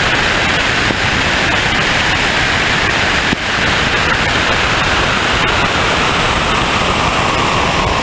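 A steady rush of wind and road noise from a car moving at speed, slowly dropping in pitch as the car slows. There is a brief dip about three seconds in.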